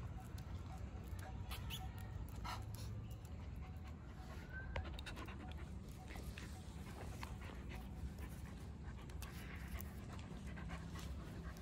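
Dog panting close by, with scattered small clicks over a steady low rumble.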